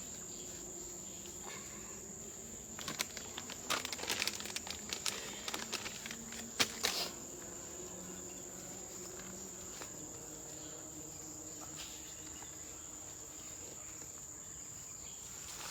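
Steady, high-pitched drone of forest insects. From about three to seven seconds in, it is overlaid by a run of sharp crackles and rustles, like leaf litter and twigs being stepped on or handled.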